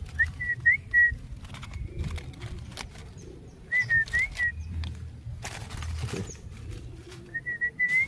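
Someone whistles a short call of about four clear notes three times over to a pet budgerigar. Between the calls come light clicks and a brief rustle, with a faint high chirp from the bird.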